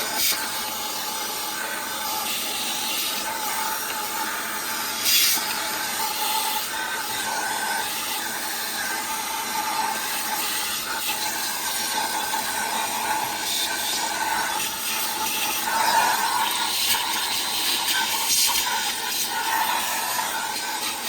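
Small vacuum cleaner running, a steady whine over the rush of air, as it cleans out the dashboard opening behind the AC control panel; the airflow sound swells a little now and then as the nozzle moves.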